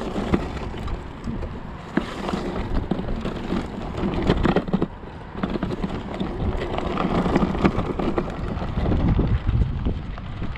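Okai ES400A electric scooter ridden over a bumpy dirt track: tyres crunching over loose dirt and the scooter knocking and rattling over the bumps, with wind buffeting the microphone.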